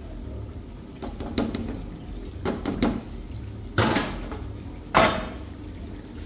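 Kitchenware knocking and clattering as sliced onions are tipped from a bowl into a frying pan: a run of light knocks, then two sharper, louder knocks about four and five seconds in.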